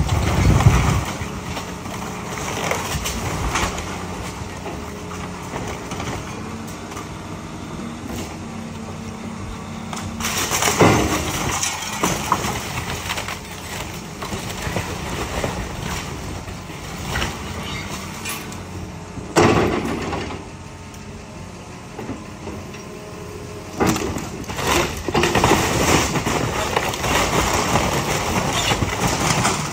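John Deere tracked excavator running steadily while its bucket tears into a wood-frame house, with crashing and splintering of timber and falling debris. The crashes come in loud surges near the start, about ten seconds in, around twenty seconds, and through the last several seconds as the wall comes down.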